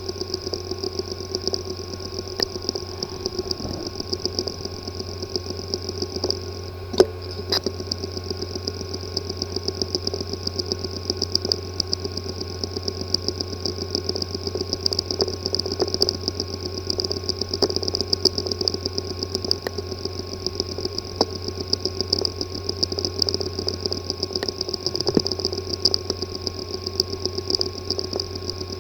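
Hard disk drive with physical damage inside its disk assembly, spinning with a steady whirring buzz and rapid, irregular ticking and clicking from the failing mechanism, with one sharper click about seven seconds in.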